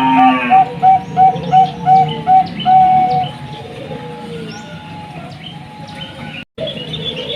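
Zebra dove (Bangkok perkutut) cooing in a rapid run of short, evenly spaced notes, about three a second, that ends about three seconds in with one longer note. Small birds chirp faintly in the background throughout.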